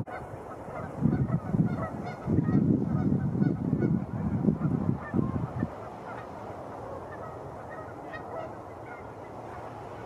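Canada geese honking, with loud gusts of wind buffeting the microphone through the first half.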